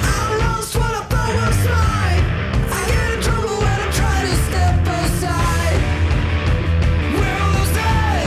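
Background music: a rock song with singing over a steady beat.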